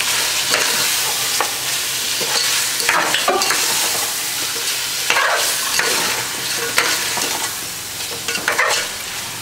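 Chicken and masala sizzling in an aluminium pot while a metal spoon stirs through it, scraping and knocking against the pot's sides every second or so over a steady frying hiss.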